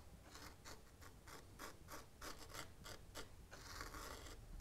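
Faint scratchy rubbing of a fingertip running through fine chinchilla sand, a quick series of short strokes, several a second.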